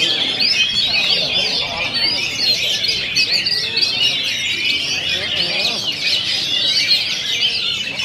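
Oriental magpie-robins (kacer) singing at once in a dense, unbroken chorus of fast, overlapping chirps, trills and whistles, mostly high-pitched.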